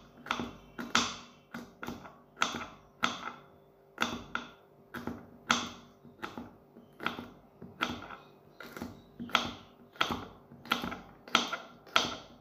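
Kitchen knife chopping green beans finely on a wooden chopping board, the blade striking the wood in a steady rhythm of about two chops a second.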